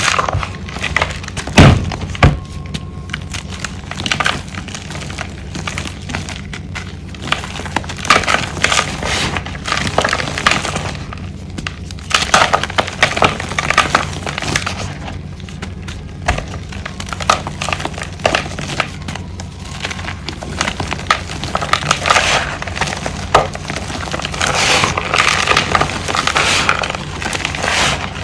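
Pieces of reformed gym chalk being crushed and crumbled: dense, irregular crackling and crunching, with a sharp knock about two seconds in. A steady low hum runs underneath.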